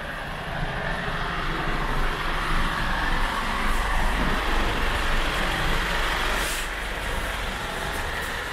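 Diesel Mercedes-Benz Atego box truck driving slowly past close by, its engine and tyres loudest about two to five seconds in, with a short hiss about six and a half seconds in.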